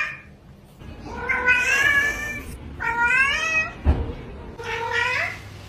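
Domestic cat meowing: three long meows, each rising in pitch, with a thump about four seconds in.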